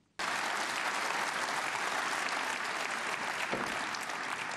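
Snooker audience applauding, starting abruptly and holding steady.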